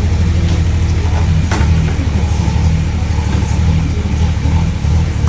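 Digger engine running steadily, with a sharp knock about one and a half seconds in.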